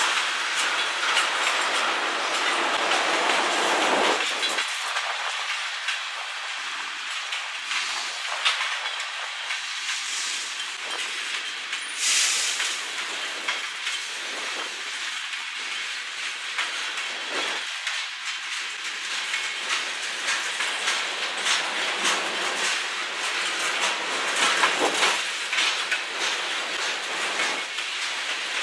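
Freight train's tank cars and covered hoppers rolling past, their steel wheels clicking steadily over rail joints with continuous running noise. It is louder for the first few seconds, and there is a brief high-pitched burst about twelve seconds in.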